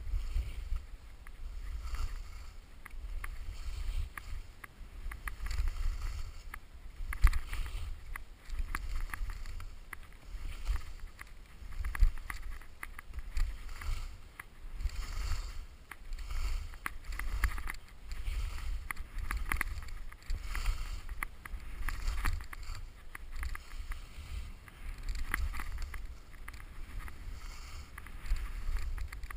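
Skis scraping and hissing over chopped-up piste snow, swelling and fading every second or two as the skier turns, over a low rumble of wind on the microphone.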